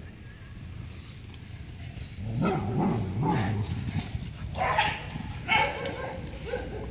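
Labrador barking at another dog through a fence: a run of barks starting about two seconds in, loudest toward the end.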